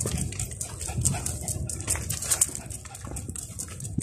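Sounds of a dog being walked on a leash: a run of short clicks and rustles over a low, uneven rumble of handling noise.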